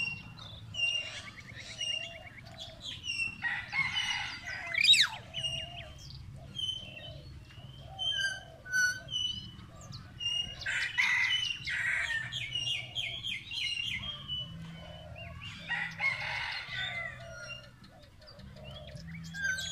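Several birds calling at once: a high chirp repeated over and over, with lower calls pulsing along beneath it. Three times, about 4, 11 and 16 seconds in, a longer, harsher call of a second or two rises over the chirping.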